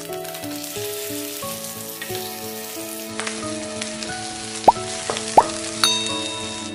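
Pork sizzling as it fries in hot oil in a nonstick pan: a steady, dense sizzle under background music. About two-thirds through come two sharp pops, then a short chime near the end.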